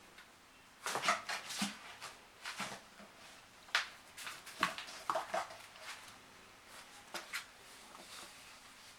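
Eight-week-old kittens moving about, making a series of short scuffling and clicking sounds, clustered between about one and seven and a half seconds in.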